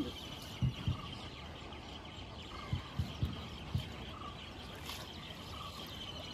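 Outdoor field ambience: a steady high-pitched drone, with a few dull low thumps about a second in and again around three to four seconds in.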